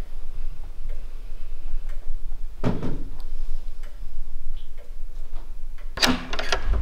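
Wall clock ticking in a quiet room over a low hum. A loud knock lands about two and a half seconds in, and another loud sharp sound comes near the end.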